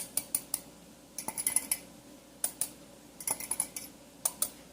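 Light clinks and taps of kitchen utensils against a mixing bowl, coming in several short clusters of clicks with quiet gaps between, as dry ingredients are added for a batter.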